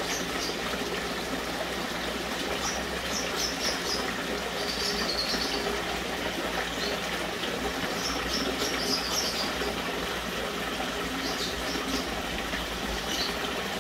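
Water running steadily, with short high sounds scattered over it.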